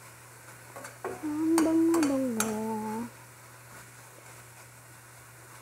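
A metal spoon stirs and scrapes flaked tuna in a stainless steel frying pan over a faint sizzle, with a few sharp clicks of spoon on pan. About a second in, a voice hums a few held notes that step down in pitch for about two seconds.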